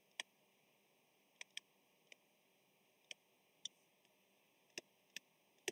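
Faint, irregular clicks of a stylus tip tapping a touchscreen during handwriting, about nine of them, against near silence.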